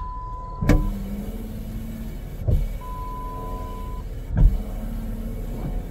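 Jeep Grand Cherokee WJ's newly replaced rear wiper motor running on test, sweeping the blade across the lift glass. It gives a steady motor hum with a low knock about every two seconds.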